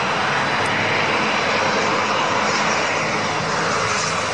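Twin-propeller aircraft engines running steadily as it flies a low landing approach with the gear down.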